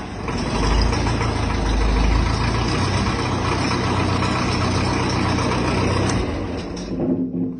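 Ferguson TE20 tractor engine running steadily, dying away near the end.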